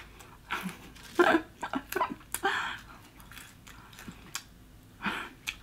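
A person chewing and biting food close to the microphone, with irregular mouth clicks and soft crunches coming in short spells.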